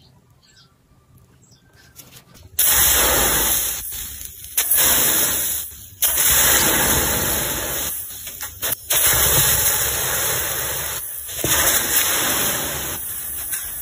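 Water poured onto a freshly cast metal hammer still hot in its sand mould, hissing and sizzling loudly as it flashes to steam. The hiss comes in suddenly about two and a half seconds in and breaks off briefly several times.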